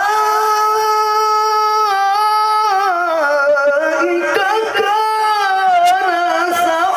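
A qari's voice in melodic Quran recitation (tilawah), holding one long high note that steps down in pitch about three seconds in and then winds through ornamented turns.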